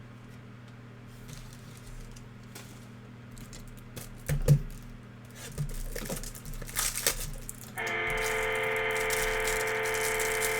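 Handling of card packaging: light taps, a single knock about halfway through, then crinkling of plastic wrap. Near the end a steady held chord of music begins and stays at one level.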